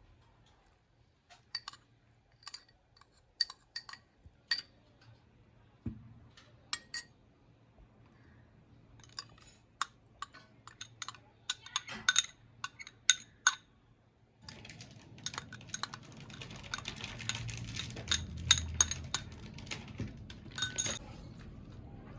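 Kitchen utensils clinking and tapping against dishes, many short ringing knocks. A steady hiss joins them about two-thirds of the way through.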